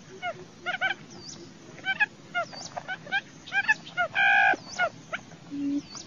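Quail calling: short arched chirps repeated in clusters of two or three, with a few high rising whistles, a louder held nasal note about four seconds in, and a low humming note that starts repeating near the end.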